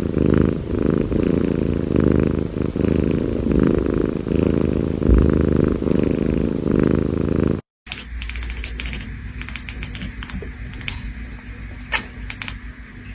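A Scottish Fold cat purring loudly in steady waves, a little under one a second. It breaks off suddenly about two-thirds of the way through, and a quieter stretch with scattered soft clicks follows.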